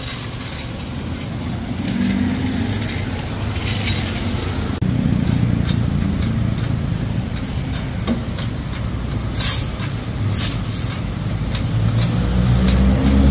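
A vehicle engine running, with two short hisses of air about nine and ten seconds in, and the engine getting louder near the end.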